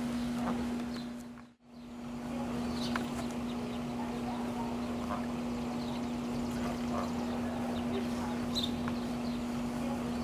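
Mallard hen and ducklings calling, with scattered short high calls over a steady low hum. The sound drops out briefly about one and a half seconds in.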